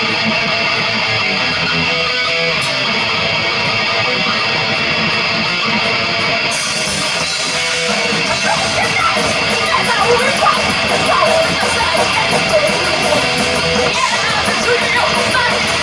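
Heavy metal band playing live, loud, with distorted electric guitar to the fore. About six seconds in, the high end gets brighter and fuller.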